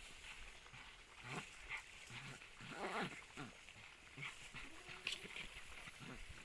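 Desi puppies fighting, giving short faint yelps and whines, the loudest about three seconds in.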